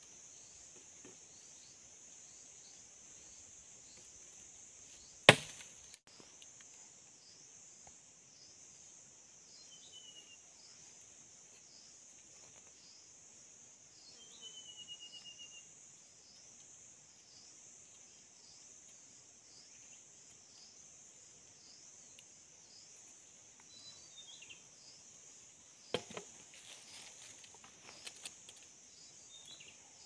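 A single sharp machete chop into a wooden stick about five seconds in, then a few knocks and small cutting sounds from a knife working a stick near the end. A steady, pulsing high-pitched insect drone runs underneath, and a bird gives a short falling series of chirps twice midway.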